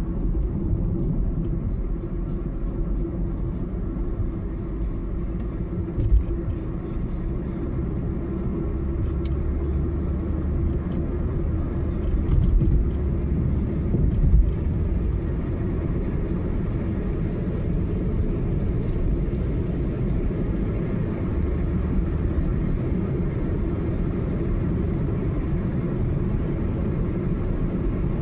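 A car driving at speed on a highway: a steady low rumble of road and engine noise, with a few short thumps partway through.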